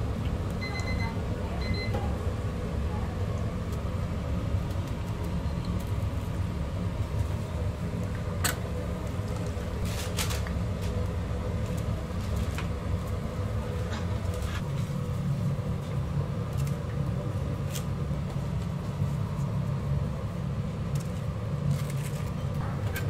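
Steady low rumble of a kitchen with corn dogs frying in a deep fryer of hot oil, broken by scattered light clicks and knocks as the sticks, trays and paper boxes are handled. Two short high beeps about a second in.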